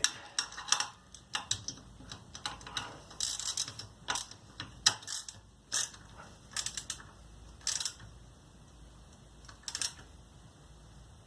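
Socket ratchet wrench clicking in short irregular runs, mixed with small metal clinks, as the exhaust mounting nuts are run down and tightened. The clicks thin out near the end.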